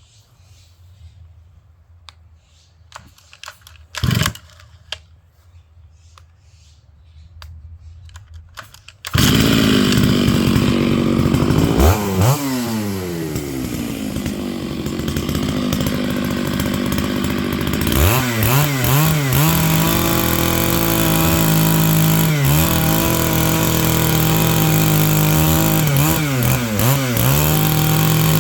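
Quiet handling sounds with one loud knock, then about nine seconds in a Stihl MS 660 two-stroke chainsaw starts abruptly and runs loudly, revving up and down several times.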